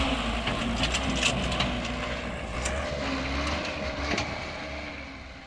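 Small dump truck's diesel engine running with a steady low rumble while the truck is stuck in soft mud at the road edge, with scattered crackles and clicks over it; the sound fades toward the end.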